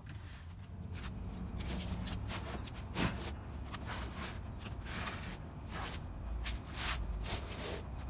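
NovaKool compact refrigerator being pulled and slid out of its cabinet: irregular scraping and rubbing strokes over a low rumble, with a sharp knock about three seconds in.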